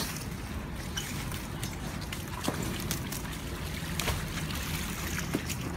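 Water sloshing and splashing as salted napa cabbage is rinsed by hand in tubs of water, over a steady low rush, with a few light knocks from the handling.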